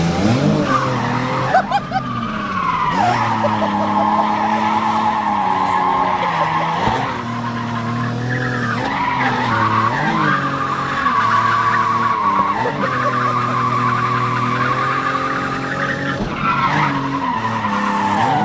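Drift car's engine heard from inside the cabin, revving hard with its pitch repeatedly dropping and climbing again as the driver works the throttle and gears, while the tyres skid and squeal through the slides.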